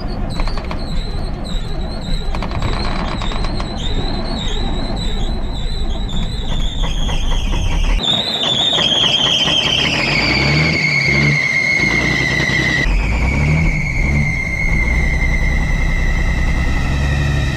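Kenworth truck's Caterpillar diesel turning over with a loud, continuous belt squeal. The squeal is a high tone that slides lower partway through, over the engine's low rumble. The crew puts it down to the belt slipping on a seized alternator.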